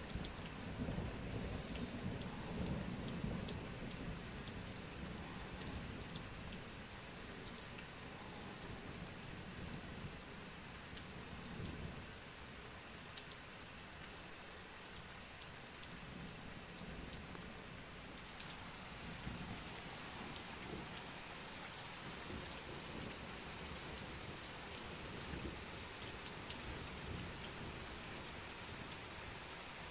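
Steady rain hiss with scattered pattering drops, and a low rumble of distant thunder over roughly the first dozen seconds that then fades.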